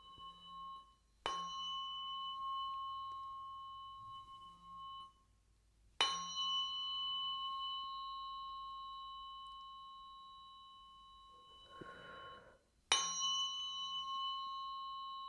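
Tuning forks for biofield tuning, struck three times a few seconds apart. Each strike leaves a clear high ringing of several steady tones that slowly fades. A soft brief rustle comes just before the last strike.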